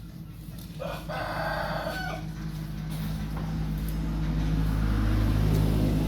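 A drawn-out animal call lasting about a second and a half, starting about a second in, over a steady low hum that grows louder toward the end.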